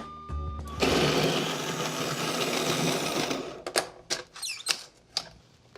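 Electric conical burr coffee grinder grinding whole beans on a coarse setting. A loud, steady grinding starts about a second in and stops suddenly after about three seconds. Several sharp clicks and knocks follow.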